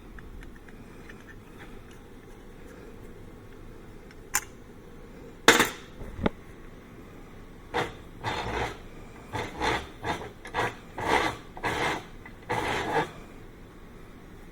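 Hand work on steel parts: a sharp clink, a loud knock and a lighter one, then a run of short scraping strokes on the metal, about a dozen in five seconds.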